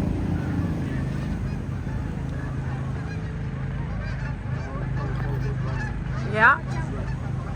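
A goose gives one loud honk about six and a half seconds in, over a steady low hum.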